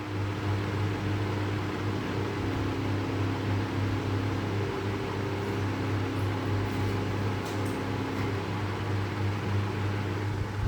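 PCB bonding machine running during a bonding cycle: a steady low electrical hum with a fan-like whir. A fainter higher tone in it shifts slightly about two seconds in.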